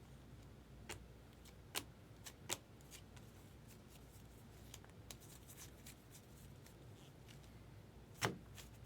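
Baseball trading cards being flipped through by hand: faint, irregular card-on-card slides and snaps, with a few sharper clicks, the loudest near the end.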